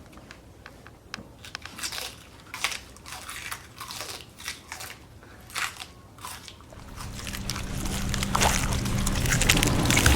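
Crisp vegetable snapped and twisted apart by hand as bone-breaking foley: a run of sharp, irregular cracks and crunches. After about seven seconds a low steady hum and a rising wash of noise build toward the end.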